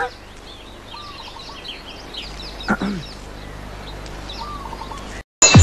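Birds chirping in the background: many short, high calls throughout. A brief vocal sound comes right at the start and another about two and a half seconds in.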